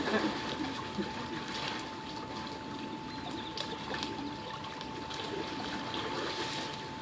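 Swimming-pool water gently splashing and lapping, with scattered small splashes. A faint steady high whine runs underneath.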